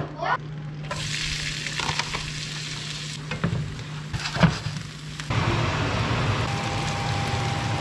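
Diced onions sizzling in butter in a nonstick frying pan while a plastic spatula stirs them, knocking against the pan a couple of times. A little over five seconds in, the sizzle gets louder as pieces of iguana meat go into the pan.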